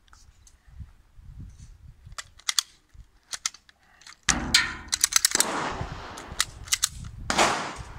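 Pistol being worked by hand through a malfunction clearance: sharp clicks and metallic knocks of the slide and magazine. About halfway through comes a sudden loud gunshot with a lingering rumble, followed by more sharp cracks and another loud bang near the end.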